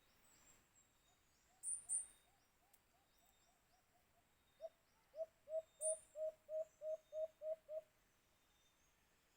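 White-eared brown dove calling: a fainter run of low hooting notes about a second in, then a louder run of about ten evenly spaced hoots, roughly three a second, in the second half. Two short sharp high chirps come about two seconds in.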